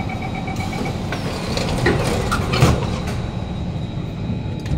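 Door-closing chime of an SMRT Kawasaki C151 train beeping in quick even pulses, fading out about a second in, then the train's doors sliding shut with a knock about two and a half seconds in. A steady high hum from the stationary train runs underneath.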